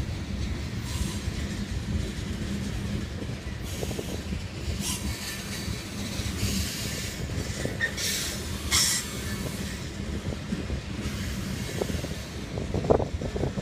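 Freight train of covered hopper cars rolling past: a steady low rumble of wheels on rail, with short high-pitched wheel squeals several times in the middle as the wheels take the curve.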